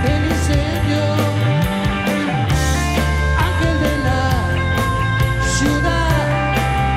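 Live rock band playing: electric guitars, bass guitar and a drum kit keeping a steady beat of about four strikes a second.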